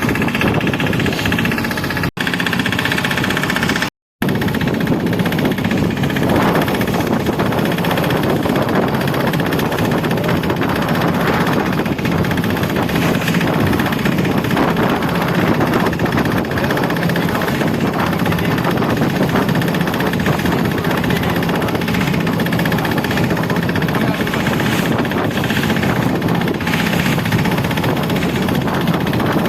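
An engine running steadily at an even speed, its drone unbroken except for two very brief cut-outs about two and four seconds in.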